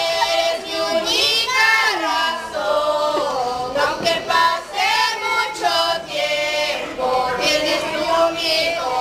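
Female and children's voices singing together as a group.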